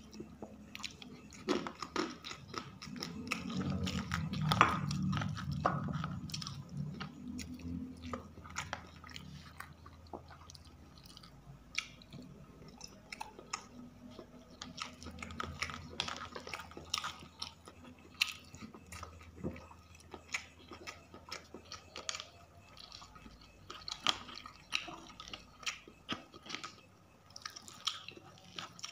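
Close-miked chewing and wet mouth smacking of someone eating rice and grilled chicken by hand: a steady run of small clicks, loudest about four to six seconds in.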